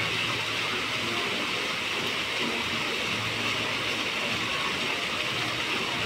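Many fountain jets spraying up and splashing back into a shallow pool: a steady rushing hiss of falling water.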